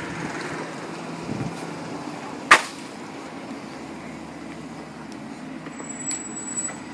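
Steady background noise of a car engine running, with one sharp, loud click about two and a half seconds in. A thin high tone sounds briefly near the end.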